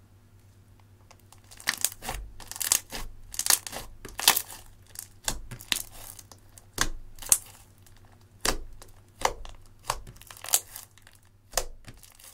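Thick purple slime (clear slime with eyeshadow mixed in) being squeezed, folded and pressed by hand, giving a run of sharp sticky crackles and snaps, roughly two a second. They start about a second and a half in and stop shortly before the end.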